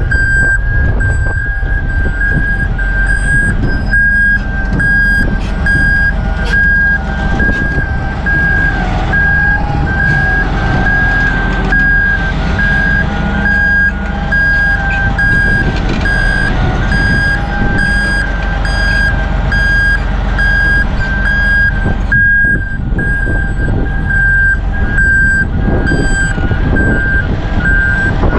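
Peterson 4710D grinder moving under its own power: its travel alarm beeps repeatedly over the steady low rumble of its diesel engine.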